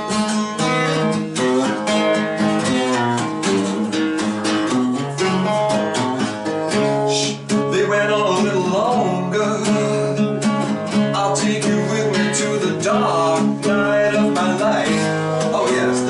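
Live solo music from a singer-songwriter's own song: an instrumental passage between sung verses, with steady, continuous playing.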